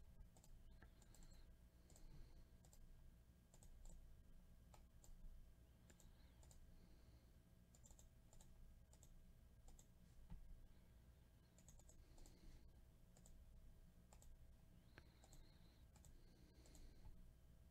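Near silence broken by faint, scattered clicks of a computer mouse and keyboard, over a low steady hum.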